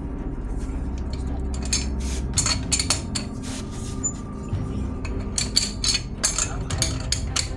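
Metal tools clinking and clanking in quick, irregular strikes, starting about two seconds in, over steady background music.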